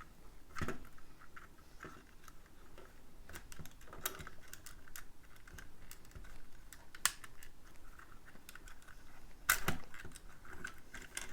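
Plastic Lego pieces clicking and knocking as they are handled, pulled apart and pressed back together, in irregular small clicks with a few sharper snaps, the loudest a little before the end.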